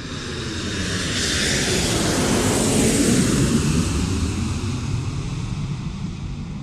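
An airplane passing by: its engine noise swells to a peak about three seconds in and then fades, with its pitch falling as it goes past.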